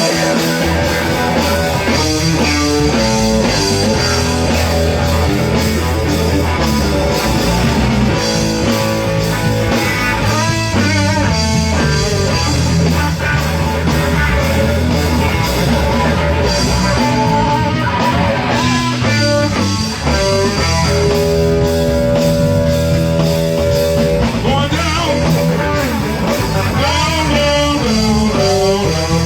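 Live band playing blues-rock, with guitar to the fore.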